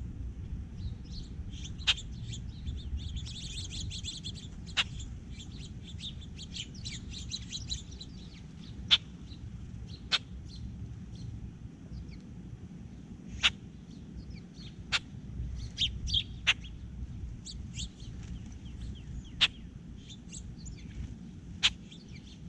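Small birds chirping and twittering, busiest a few seconds in, with a sharp click every second or few and a steady low rumble underneath.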